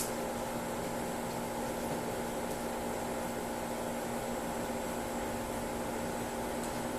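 Steady machine hum, even and unchanging, with a few constant tones under a hiss.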